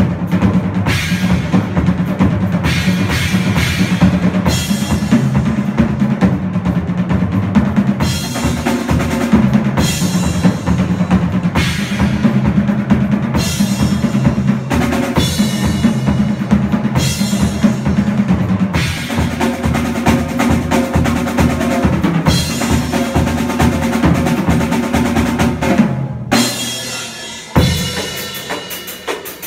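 Pearl drum kit played solo: fast strokes across toms, snare and bass drum, with cymbal crashes every couple of seconds. The playing breaks off suddenly about 26 seconds in, leaving one hit to ring and die away, then starts again near the end.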